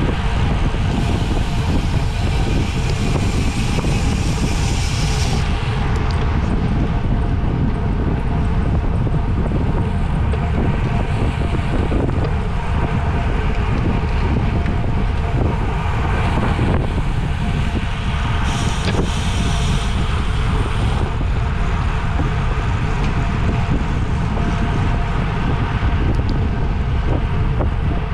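Steady wind noise buffeting the microphone, as from a camera moving at speed with a bicycle in a criterium race.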